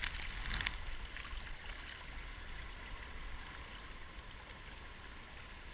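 Soft, steady hiss of waves washing over a rocky shoreline, with a short louder burst in the first second.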